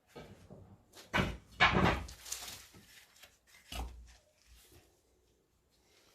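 Knocks and clatter of metal parts and tools being handled and set in place, a few separate clunks with the loudest between one and two seconds in.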